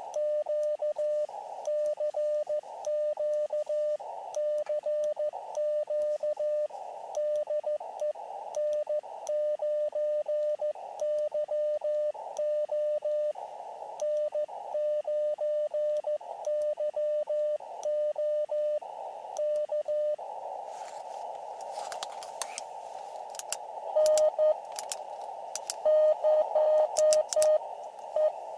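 Elecraft KX2 transceiver's CW sidetone: a steady mid-pitched beep keyed in Morse code dots and dashes as a call goes out, over the hiss of the radio's narrow CW filter. Then the receiver hiss runs steady with a few sharp clicks, and near the end short Morse beeps at the same pitch come through.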